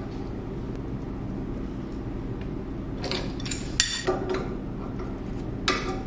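Steel wrenches clinking and scraping against threaded pipe fittings as the air line is tightened at the compressor outlet, in a short cluster of metallic clinks about three to four seconds in and another near the end. Under it runs a steady low machine hum.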